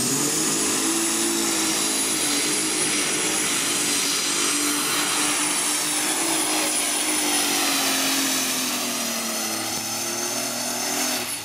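Competition pulling tractor running flat out down the track: a loud, steady engine note with a high whine over it that dips briefly about eight seconds in.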